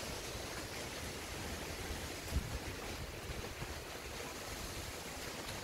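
Gusty wind ahead of an approaching thunderstorm, rustling tree leaves and buffeting the microphone with uneven low rumbles.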